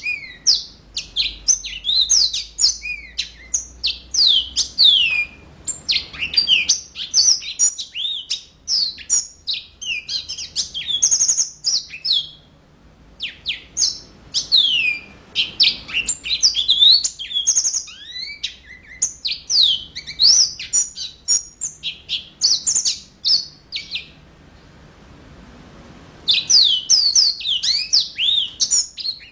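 Yellow-fronted canary (Mozambique canary) in full song: fast, continuous runs of chirps and descending whistled notes. The song breaks off briefly about 12 seconds in and again for about two seconds near 24 seconds, then starts again.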